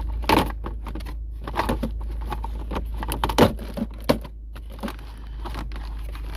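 Irregular clicks, knocks and scrapes of plastic parts being handled at a car's gear-shifter console, as the trim around the shifter is worked loose.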